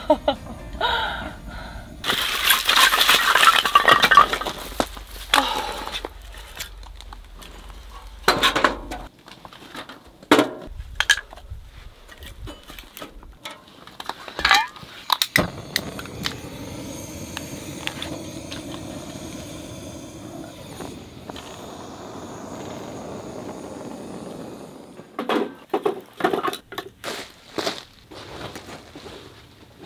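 A Kolon Sport Buttumak wood stove being lit with a hand-held gas torch: the torch gives a loud hiss about two seconds in, then come scattered sharp metallic clinks and knocks from the stove and its firewood. A steady rushing sound follows for several seconds, and a few more clinks come near the end.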